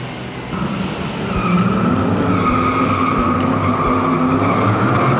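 Car tires squealing while an engine revs, a sound effect of a car cutting in sharply. It starts about half a second in and holds a steady high squeal for several seconds.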